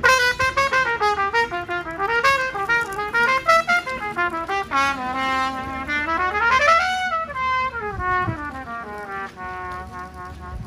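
Jazz trumpet playing a quick, lively melody with a small acoustic street band: violin, upright bass and guitar. The line climbs in a run to a high note about seven seconds in, then drops back lower and softer.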